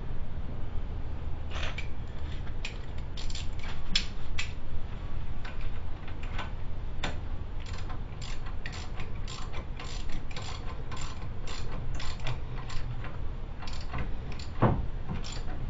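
Ratchet wrench clicking in short, irregular runs as the hub-to-knuckle bolts of a new front wheel hub bearing are run in. A louder knock comes near the end, over a steady low hum.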